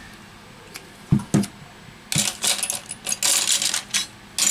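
Two sharp clicks, then a couple of seconds of rapid, scratchy clicking and scraping as a prying tool is worked along the edge of a Samsung Galaxy S8's heat-softened glass back cover to break its adhesive.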